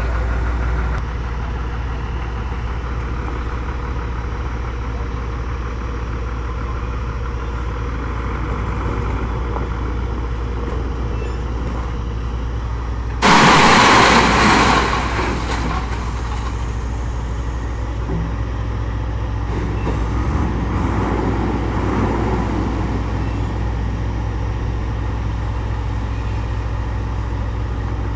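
Diesel engines of an excavator and a tipper truck running steadily. About 13 seconds in, a bucketful of crushed stone pours into the truck's steel bed in a loud rush lasting about a second and a half, and a quieter pour of stone follows around twenty seconds in.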